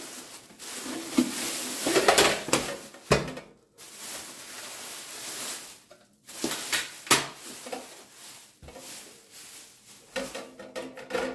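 Thin plastic bag crinkling as a stainless-steel deep fryer is pulled out of it, with several sharp knocks as the fryer and its metal parts are handled and set down.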